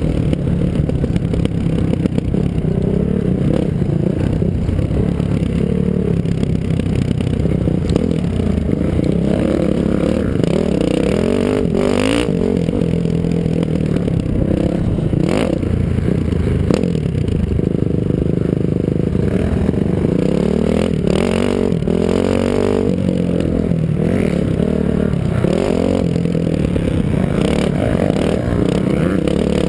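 Dirt bike engine revving up and down continuously under hard riding on a motocross course. Several sharp knocks and some clatter come from the bike hitting bumps, all picked up by a helmet-mounted camera.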